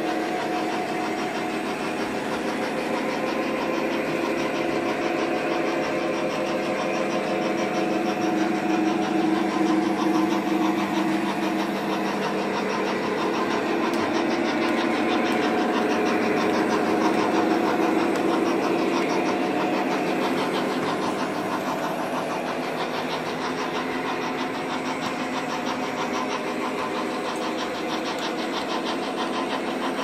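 O-gauge model trains running on track: the steady hum of their motors and the rumble of wheels on rail, mixed with the Lionel SD60M's onboard diesel engine sound effect. It swells a little twice, as the diesel draws near.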